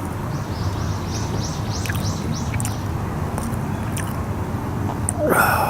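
A small songbird singing a quick run of about eight repeated high notes over a steady low outdoor rumble. Near the end there is a louder, harsher sound.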